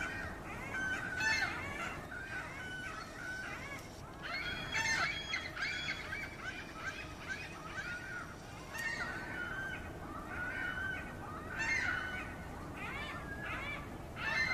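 A group of birds calling: many short, overlapping calls in bunches.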